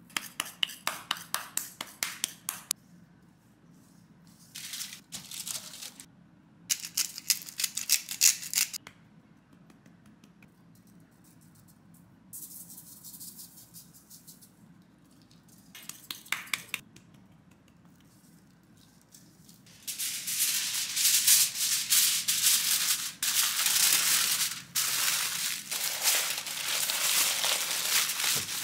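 Spice shaker bottles rattling in short bursts of quick shakes as seasoning is sprinkled onto a rack of ribs. About two-thirds of the way through, aluminium foil starts crinkling loudly and continuously as the rack is wrapped.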